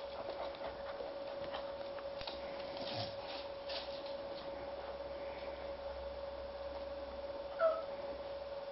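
Cocker spaniel puppies suckling at a lying adult cocker spaniel: faint scattered clicks and smacks over a steady hum, with one short high squeak near the end.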